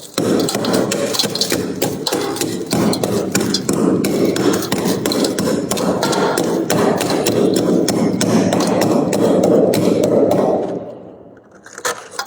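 Freezer frost being scraped up with a scraper in fast, continuous strokes, a dense crackly scratching with many small clicks, stopping about ten and a half seconds in.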